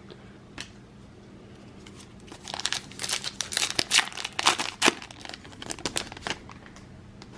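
Foil wrapper of a baseball card pack being torn open and crinkled: a dense run of sharp crackling that starts about two seconds in and dies away near the end.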